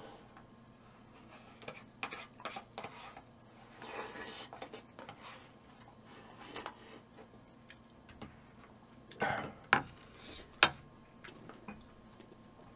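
Close-miked eating sounds: a metal spoon scraping and tapping a small plastic tub, with chewing and slurping. A few sharper clicks and knocks stand out about nine to ten and a half seconds in.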